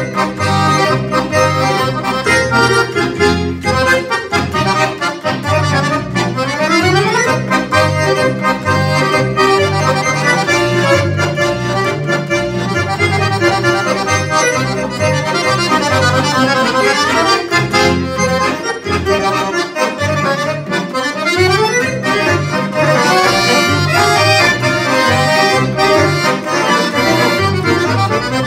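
Two chromatic button accordions, one of them a Roland digital V-Accordion, playing a Finnish polka as a duet over a steady alternating bass. Fast runs sweep up and down the keyboard about six seconds in, and again past the middle.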